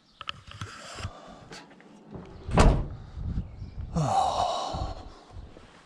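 Van door being shut: a few light clicks and knocks, a loud slam about two and a half seconds in, then a scraping rattle about four seconds in.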